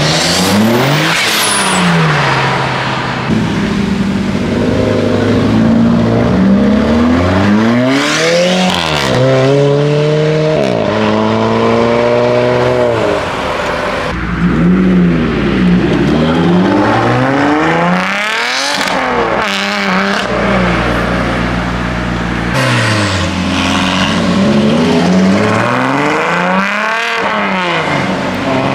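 A procession of sports cars accelerating past one after another, their engines revving up in repeated climbs broken by gear changes, each note dropping in pitch as a car goes by. The first to pass is a Porsche 911.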